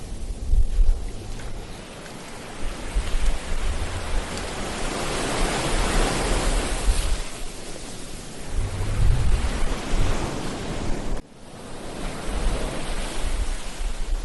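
Ocean surf breaking and washing on a beach, swelling to a peak about six seconds in, with wind buffeting the microphone in low rumbles. The sound drops out abruptly for a moment about eleven seconds in.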